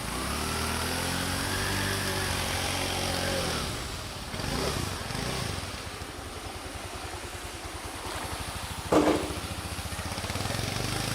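A motor vehicle engine running, its pitch rising and falling over the first few seconds, then settling into a steady pulsing idle. A short sharp sound comes about nine seconds in.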